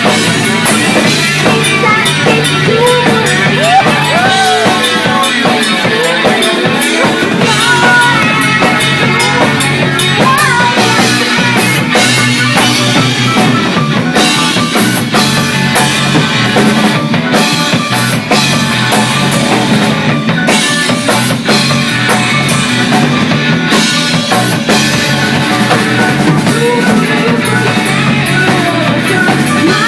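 Loud rock music with a drum kit, playing steadily without a break.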